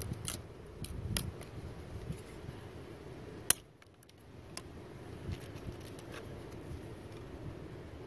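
Large knife blade shaving thin curls off a small wooden stick to make a feather stick: a run of short scraping clicks, with one sharp, loud click about three and a half seconds in.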